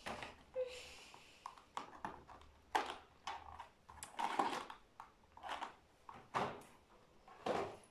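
Foil wrapper of a Kinder mini chocolate egg crinkling and rustling as it is unwrapped, in a string of irregular short rustles.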